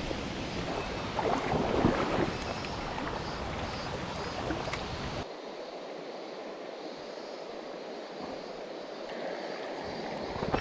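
Mountain stream rushing over rocks, a steady noise of running water. About five seconds in, the deep rumble drops away abruptly, leaving a lighter hiss of water.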